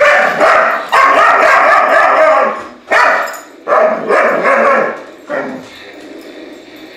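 Toy dinosaur giving long electronic roars through its small speaker: three drawn-out roars and a short one about five seconds in.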